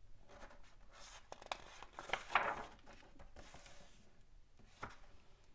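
A page of a hardcover picture book being turned: a papery rustle and swish, loudest about two seconds in, with a few light taps of hands on the book.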